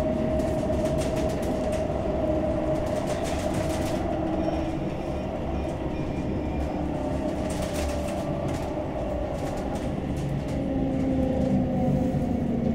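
CAF Urbos 3 tram running, heard on board: a steady electric whine from the traction drive over the rumble of the wheels, the whine sliding gently lower in pitch in the second half as the tram slows. Wheels clatter on the track about three seconds in and again about eight seconds in.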